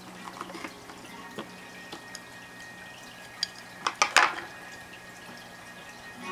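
Chopsticks clicking and tapping against a porcelain plate as a piece of food is set down, with a quick cluster of sharper clicks about four seconds in.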